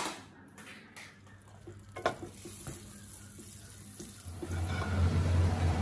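Butter sizzling as it melts in a hot nonstick frying pan, pushed about with a spatula, with a knock about two seconds in. About four seconds in, a kitchen range-hood fan starts and adds a steady low hum and rush.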